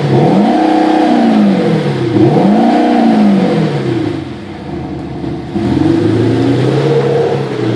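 Audi A6 3.0 TDI V6 diesel with a retrofitted Eberspächer Active Sound exhaust-sound generator, revved up and back down twice with a smooth, synthetic-sounding engine note. The engine then drops back to a lower steady idle.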